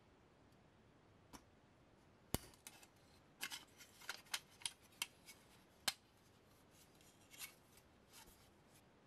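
Sharp plastic clicks and taps as a 1/24 scale model car's plastic chassis is pressed and fitted into its body shell. There are about a dozen irregular clicks, bunched in the middle, with the loudest about two and a half seconds in and again near six seconds.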